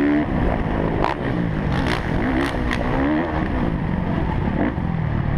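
On-board sound of a Kawasaki KX450F 450cc four-stroke single-cylinder motocross engine racing. The throttle is chopped just after the start, then the revs climb and fall as the rider works the throttle over the dirt track. A few sharp knocks come from the bike between about one and three seconds in.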